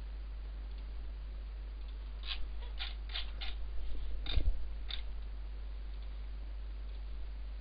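Computer mouse button clicks: about six short sharp clicks between about two and five seconds in, the one near four and a half seconds loudest with a low knock in it, over a steady low hum.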